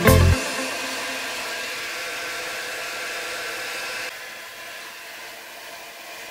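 Steady hiss of rushing air in an automotive paint spray booth, louder for about the first four seconds and then dropping to a softer hiss.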